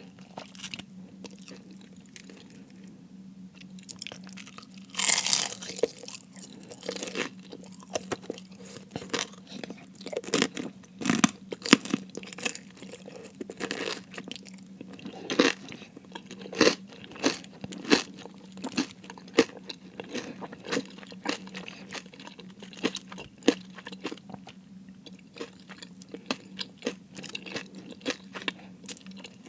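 Close-miked chewing and crunching of crispy fried food: an irregular run of sharp crunches, with a loud bite about five seconds in.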